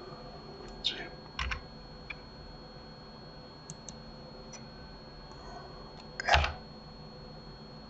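Scattered computer keyboard keystrokes and mouse clicks, a few sharp separate taps with long gaps between them. The loudest is a heavier knock about six seconds in.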